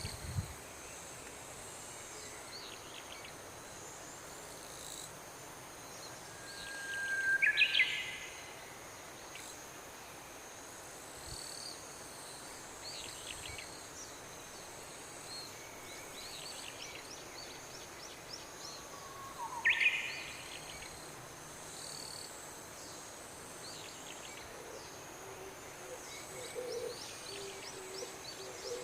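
Outdoor ambience with a steady high insect drone and scattered bird chirps. Two louder calls rise sharply in pitch, one about a quarter of the way in and one about two-thirds in, and a low hooting starts near the end.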